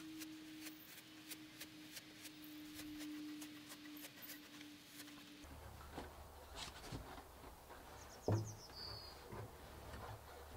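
Faint crackling and rustling of polyester fleece insulation being torn apart and pushed into a van's side-panel cavity, with a single sharp knock about eight seconds in.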